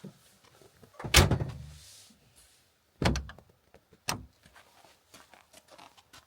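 Vehicle doors being shut: a heavy slam with a deep thud about a second in, another slam about three seconds in, and a lighter one a second after that.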